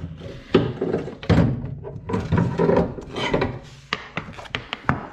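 Rack-and-pinion steering rack being worked out from under the car: metal parts scraping and knocking against the chassis, then several sharp clunks toward the end as it is set down on the concrete floor.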